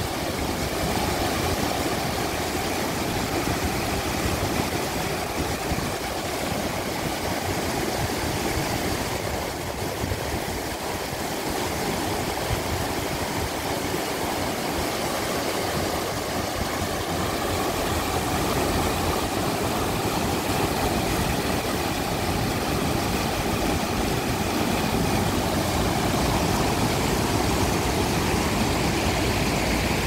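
Shallow river water rushing over rocks in whitewater rapids: a steady, unbroken rush.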